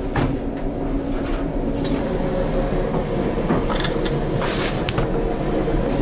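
Steady rumble of a running vehicle, with a few short hisses over it.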